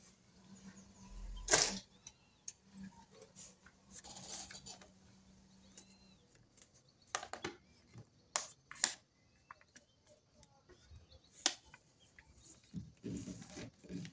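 A sheet of paper being folded and creased by hand on a wooden table: scattered soft rustles and short clicks of the paper, the loudest about one and a half seconds in.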